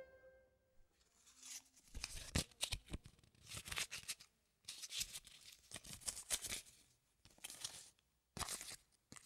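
Paper banknotes rustling faintly in a string of short crinkles as they are handled and pushed into a jeans pocket.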